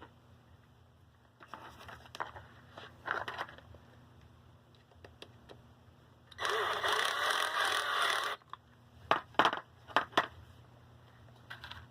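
Box fan parts being worked on by hand. After a few faint scrapes and clicks comes a loud scraping rasp lasting about two seconds, then four or five sharp knocks about a second later.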